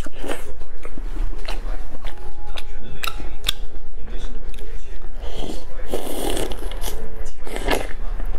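Close-miked eating of pan-fried pork buns (shengjian bao): bites into the bun, wet mouth clicks and chewing, heard as scattered sharp clicks and short crackly patches. A steady low hum runs underneath.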